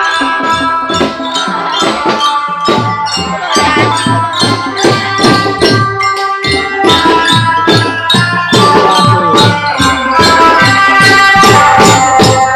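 Children's marching drum band playing a tune: many metal bell lyres (glockenspiels) struck with mallets, ringing over a steady drum beat.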